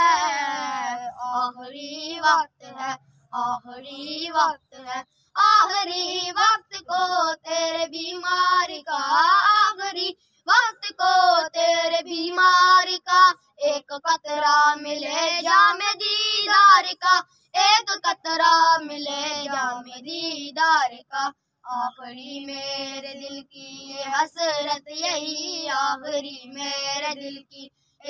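A naat sung by a single high voice, in long ornamented phrases with short breaks between them. No instruments are heard.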